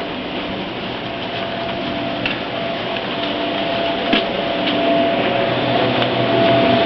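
A machine's steady hum with a thin whine, growing slowly louder, with a few light clicks.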